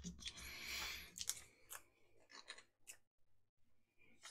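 Faint small clicks and a brief rustle of small tools and parts being handled on a workbench, with a low bump of handling noise in the first second.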